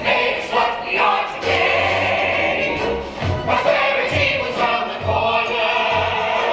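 A chorus of voices singing together over a pit band, with a low beat about once a second.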